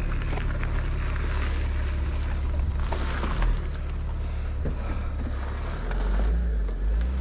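Wind rumbling on an action camera's microphone, a steady low rumble with a few scattered clicks and knocks.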